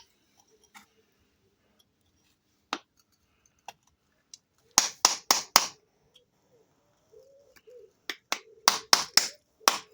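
Sharp taps struck on a geode stone to crack it open. There is a single tap, then a quick run of four, then about six more in quick succession near the end.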